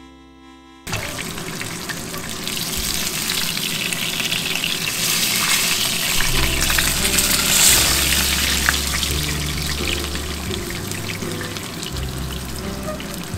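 A whole tilapia shallow-frying in hot oil in a frying pan, the oil sizzling and spitting. The sizzle starts suddenly about a second in and is loudest around the middle.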